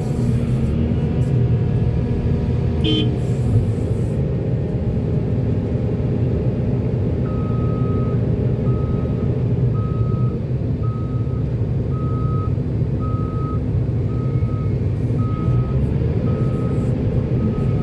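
Heavy diesel construction machinery running steadily. About seven seconds in, a reversing alarm starts and beeps about once a second.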